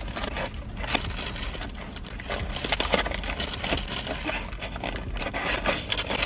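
Paper bags and sandwich wrappers rustling and crinkling in irregular bursts as toasted sandwiches are unwrapped by hand.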